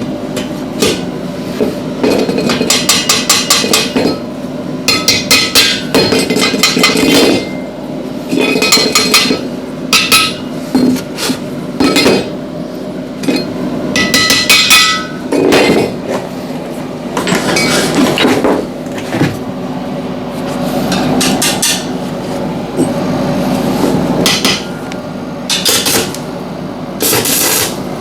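Metal being hammered in bursts of rapid strikes, with pauses between, during door-frame welding work. A steady low hum runs underneath.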